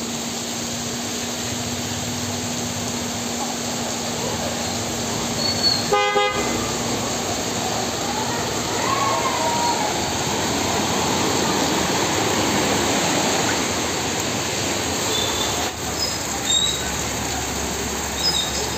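Steady hiss of heavy rain and water on a flooded street, with a short vehicle horn toot about six seconds in. A vehicle driving through the floodwater makes the noise swell and fade around the middle.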